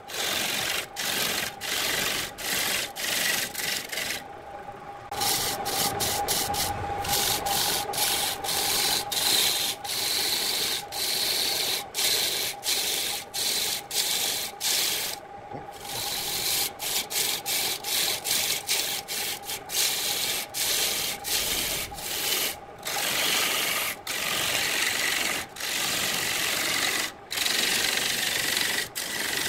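Turning tool cutting into a wooden vase blank spinning on a wood lathe: short scraping cuts broken by brief gaps, with a few longer pauses, over a steady tone underneath.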